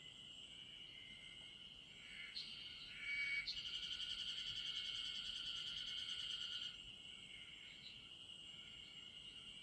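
A chorus of insects calling steadily at a high pitch. A louder, rapidly pulsing trill joins about two seconds in and stops about seven seconds in.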